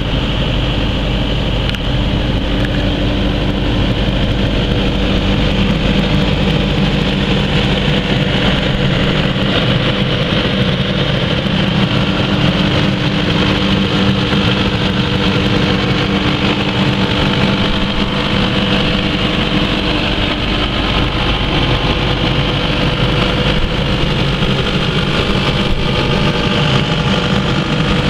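Kubota KX080-3 excavator's diesel engine running steadily at idle.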